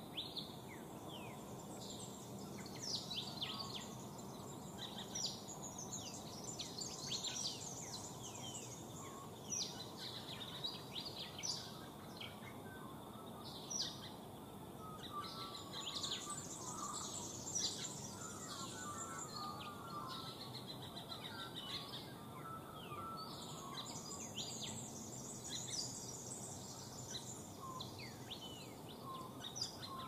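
Birds chirping and calling: many quick high notes and short falling whistles, over a steady background hiss.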